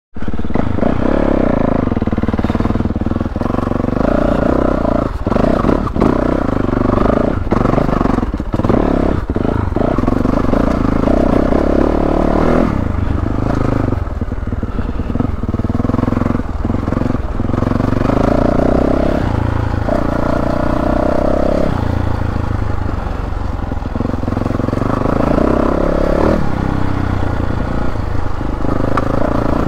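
2022 Yamaha YZ450F's single-cylinder four-stroke engine running as the bike is ridden, its pitch rising and falling with the throttle. Scattered knocks and clatter come through along with it, most often in the first half.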